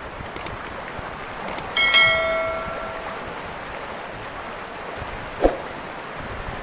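Subscribe-button sound effect: a few quick clicks, then a single bell chime about two seconds in that rings and fades over about a second, over the steady rush of river rapids. A short thump comes near the end.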